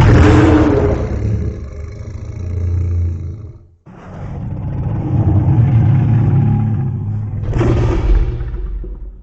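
Revamped Godzilla sound effects: a deep, bass-heavy roar that fades out about four seconds in, then a second long rumbling roar with a sudden loud surge near the end.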